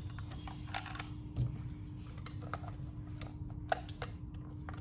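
Small plastic clicks and knocks from a night-vision goggle battery pack's case being opened and handled, scattered irregularly, with one sharp click about three-quarters of the way through. A low steady hum runs underneath.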